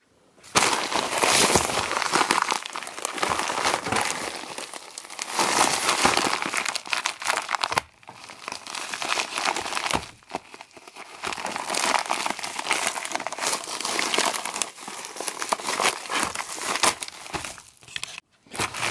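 A Priority Mail flat-rate mailer envelope being torn open and crinkled by hand, in irregular bursts of rustling with a few short pauses.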